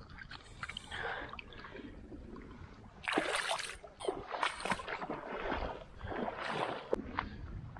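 Shallow sea water splashing and sloshing in several short bursts as hands work in it, with a few light clicks of a knife against oyster shell in the first second or so.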